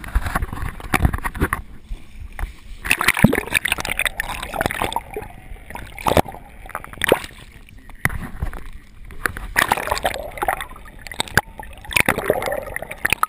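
Water gurgling and sloshing around a camera dipped underwater from the side of a boat, with irregular knocks and clicks throughout.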